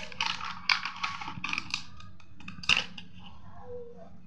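Thin plastic lid of a disposable food tub being prised and pulled off, crackling and creaking under the fingers, with one sharp snap about two and a half seconds in as it comes free.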